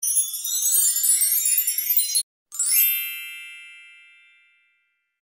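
Magical sparkle sound effect: a dense shimmer of high tinkling chimes for about two seconds, then a brief break and a single bright chime that rings out and fades away over about two seconds.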